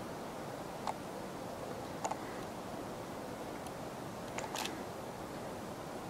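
Outdoor background ambience: a steady low hiss with a few faint short clicks, about one second in, about two seconds in, and around four and a half seconds in.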